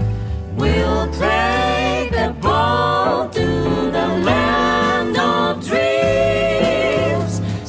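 Four-voice jazz vocal group singing in close harmony, several voices moving together in short phrases over a low bass line.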